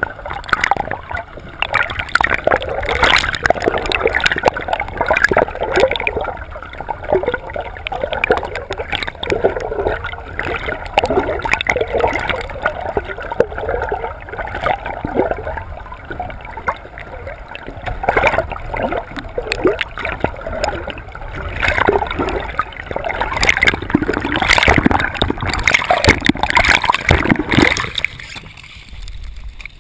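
Water gurgling and rushing against a camera held under the sea surface, loud and continuous with many short splashy rushes. It drops away sharply near the end as the camera comes up out of the water.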